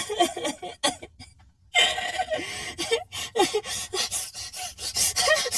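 A girl sobbing in short, catching gasps and broken whimpers, pausing for about half a second roughly a second in, then sobbing again.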